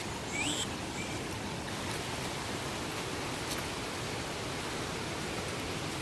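Steady rush of falling water, an even hiss with no break, and a brief rising chirp about half a second in.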